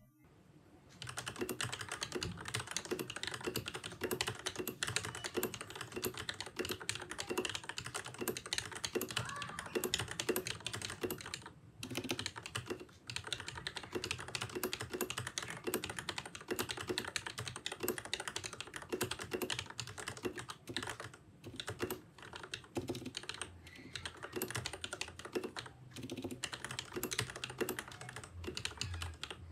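Typing test on a Ducky Zero Shine mechanical keyboard with Cherry MX Red linear switches lubed with Krytox 205 and lubed Cherry stabilizers: fast, continuous keystrokes starting about a second in, with a few brief pauses.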